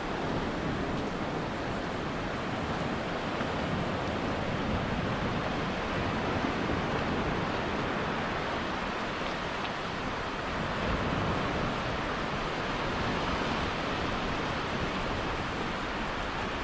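Small waves breaking and washing up a sandy beach as a steady wash of surf noise.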